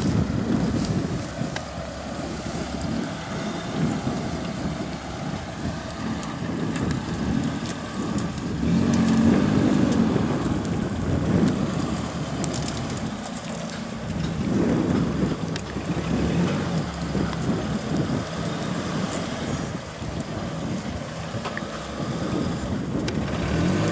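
Lifted Suzuki Samurai 4x4's engine running under load as it crawls over a dirt mound, swelling louder several times, most strongly about nine to twelve seconds in. Wind buffets the microphone at times.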